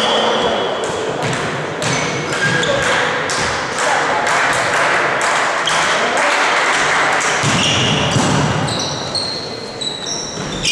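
Indoor volleyball play: repeated ball hits and thumps, short high squeaks of shoes on the court floor, and players' voices calling.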